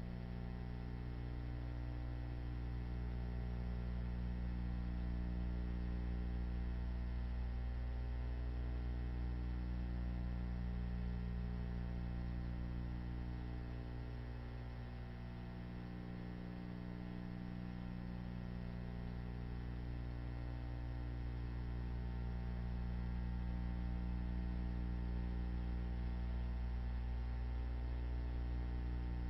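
Steady low electrical hum with a faint buzz above it, one pitch held throughout.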